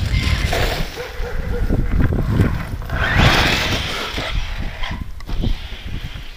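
Losi Tenacity T 2S brushless 4WD RC truggy driving across the grass, its motor and tyres heard from a distance, louder for about a second three seconds in. Wind rumbles on the microphone.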